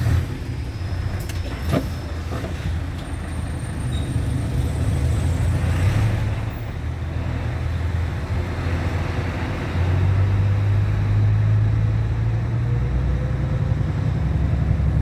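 Six-axle truck's diesel engine running with a steady low rumble, growing louder about ten seconds in. A couple of short clicks near the start.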